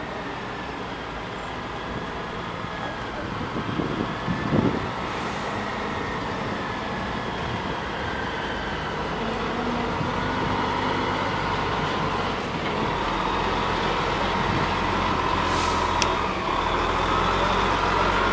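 DAF XF heavy recovery truck's diesel engine running as the truck reverses slowly past at close range, growing louder as it comes alongside. Two short hisses of air, about five seconds in and near the end.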